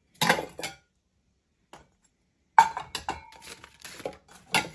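White ceramic plates clattering and clinking together as they are handled and set down, in three bursts; the loudest, about two and a half seconds in, leaves a short ring.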